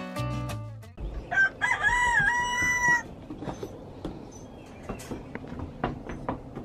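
A rooster crows once, about a second in: one drawn-out call that rises, dips briefly and holds level before cutting off abruptly. Background music ends just before it, and faint outdoor sound with light taps follows.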